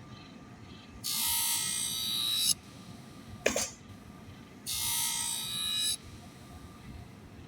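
Work Sharp Twice as Sharp scissor sharpener grinding a scissor blade on its abrasive wheel in two passes of about a second and a half each, each cutting off abruptly. A short click comes between the two passes.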